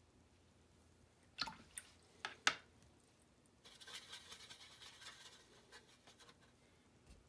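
A few sharp taps, then a watercolor brush swirling and scrubbing in a puddle of wet paint in a palette well: a soft, wet scratching with rapid fine ticks that lasts about three seconds.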